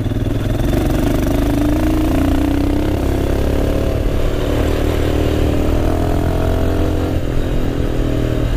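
Royal Enfield Himalayan's single-cylinder engine running under way on a trail ride. Its revs climb over the first couple of seconds, then rise and fall with the throttle.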